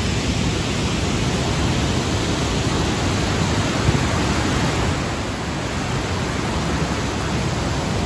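Waterfall cascading over several rock ledges: a steady rushing of white water.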